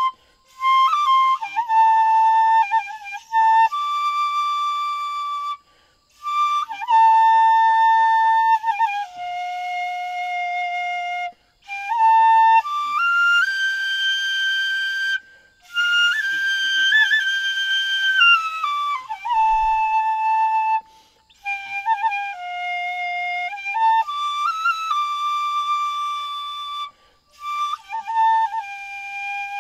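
Background music: a slow solo flute melody of long held notes with small ornaments, broken by short pauses between phrases every few seconds.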